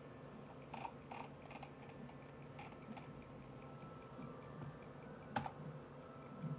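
Occasional clicks from computer use over a low steady room hum: a few light clicks in the first three seconds and one sharper click a little past five seconds in.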